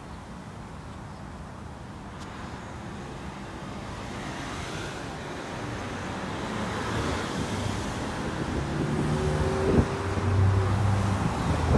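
A motor vehicle's engine hum and tyre noise growing steadily louder as it approaches, the engine's low hum becoming distinct in the second half, with a single sharp knock about ten seconds in.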